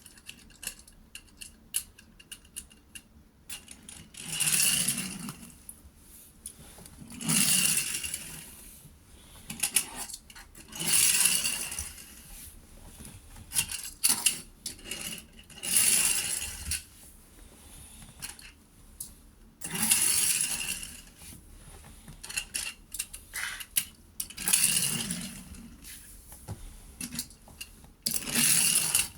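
Small hard toy parts clinking and rattling as they are handled, in bursts of a second or two every few seconds, with light clicks in between.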